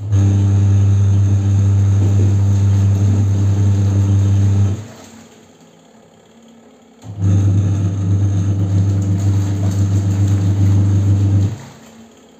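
Washing machine motor humming through its wash cycle: it runs for about five seconds, stops for about two, then runs again and cuts off near the end, the stop-and-go of the drum agitating the clothes.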